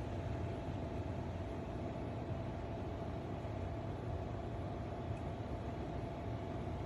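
Antarctic Star bladeless tower fan running: a steady rush of air with a faint, steady motor whine.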